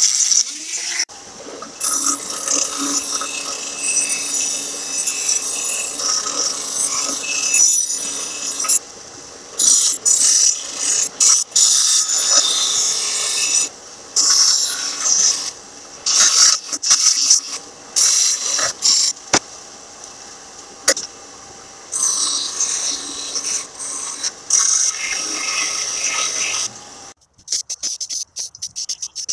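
Power tools grinding rust off a steel garden shovel: a rotary tool's grinding stone and a bench grinder's wheel against the metal, running in stretches broken by short pauses.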